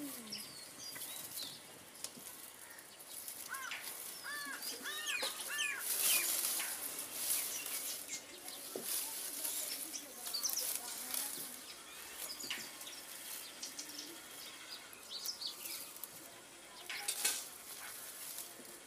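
Dry bamboo leaves and branches rustling as they are handled and set into a bamboo fence, loudest in a couple of bursts. Birds call over it, with a quick run of repeated chirps about four seconds in.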